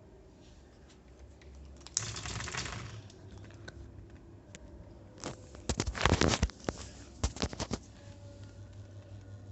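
A brief rustle, then a cluster of sharp clicks and rattles, typical of handling a Kyowa mini ceiling fan and working its switch. Near the end a low steady motor hum sets in.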